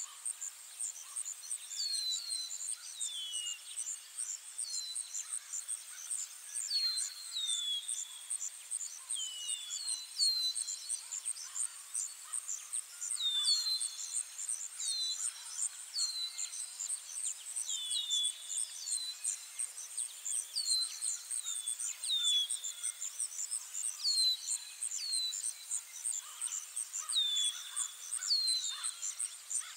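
Countryside ambience: crickets trilling steadily in a high, fast pulse, with a bird giving short, falling chirps every second or so, often in pairs.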